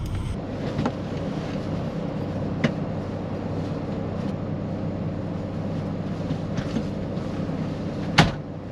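Semi truck's diesel engine running at a steady idle, heard inside the cab, with a few light clicks and one sharper knock near the end from handling things in the cab.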